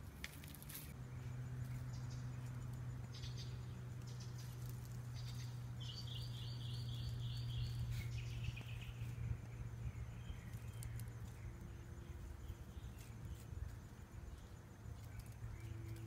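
Outdoor ambience: a steady low hum throughout, and a bird calling a quick run of about eight high notes about six seconds in, with fainter calls after. Faint scattered rustles and clicks.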